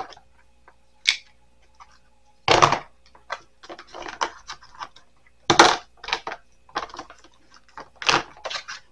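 AA and AAA batteries being set upright one after another in a plastic storage container, with a string of irregular clicks and clatters. The two loudest come about two and a half seconds in and again about five and a half seconds in.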